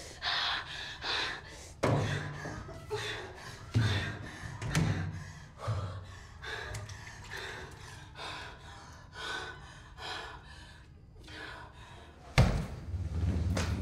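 A woman panting and gasping in short breaths, with a few knocks and thuds as she moves. About twelve seconds in, a loud, sharp door slam, followed by a low rumble.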